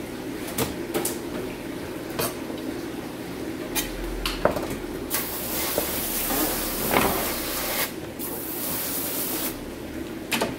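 A knife knocks a few times on a plastic cutting board. Then water sprays in two long spells with a short break between them.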